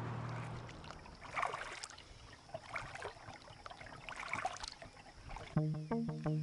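Kayak paddle strokes in calm water, three dips with a splash and trickle about a second and a half apart. The steady hum of a car on the road cuts off just under a second in, and music with a steady beat starts loudly near the end.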